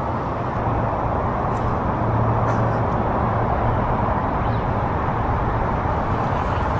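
Steady road traffic noise, an even rumble and hiss with a low hum underneath.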